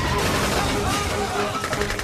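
Action-film soundtrack: a dramatic music score mixed with a dense, rapid volley of gunfire.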